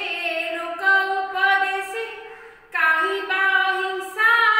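A woman singing lines of an Odia poem unaccompanied, in long held notes, with a short pause for breath a little past halfway.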